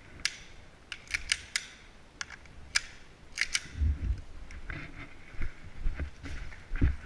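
Airsoft gun firing single shots as sharp snapping clicks, about nine in the first three and a half seconds, some in quick pairs. After that come low thumps and rustling of movement.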